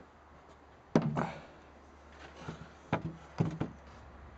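Parts of a homemade apple scratter's hopper knocking together as they are fitted in place: a sharp knock about a second in, then a few lighter knocks near the end.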